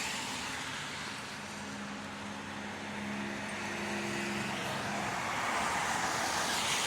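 Traffic on a rain-wet street: car tyres hissing on wet pavement, with a low steady vehicle hum from about one and a half to five seconds in.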